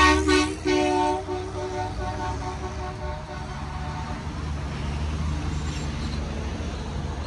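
A car horn tooting in a few short bursts, then held for about a second and fading out, over the low rumble of passing traffic. A large box truck's engine rumbles past in the second half.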